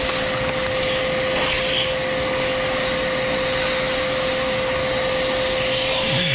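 Bauer 14-gallon 6 hp wet/dry shop vacuum running steadily while sucking up pine needles: a constant rush of air with a steady whine.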